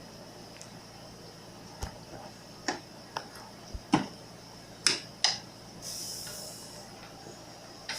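Scattered sharp clicks and knocks of hands and tools working on a refrigerator door handle, about seven in all, the loudest about four seconds in, followed by a brief high hiss.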